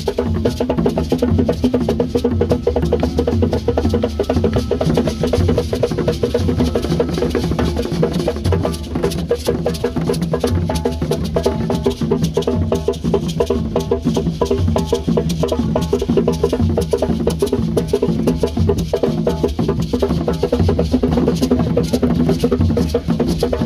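Loud, steady music driven by fast drumming and percussion.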